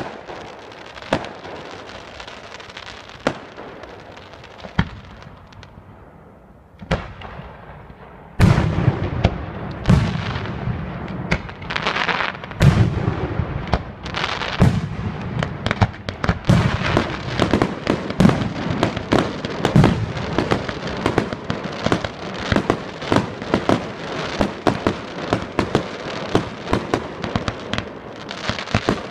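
Display fireworks: a few scattered pops and crackles, then about eight seconds in a loud, dense run of shell bursts begins, booming bangs one after another with crackling between them.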